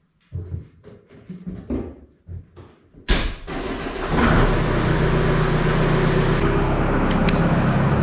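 New Holland C232 compact track loader's diesel engine starting about three seconds in, then idling steadily as it warms up. Before it starts, a few knocks and clatter.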